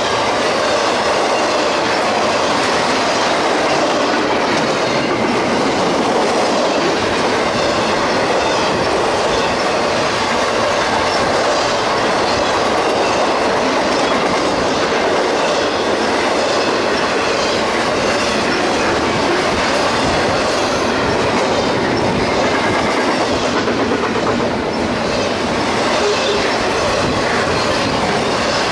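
CSX intermodal freight train of double-stacked containers and trailers rolling past close by: a steady, loud rush of steel wheels on rail with the clatter of wheels over rail joints.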